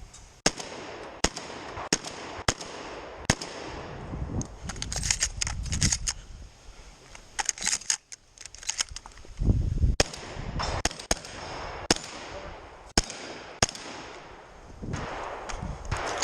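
Shotgun fired again and again during a timed competition stage: sharp shots at uneven spacing, some in quick strings, with handling and movement noise in the gaps.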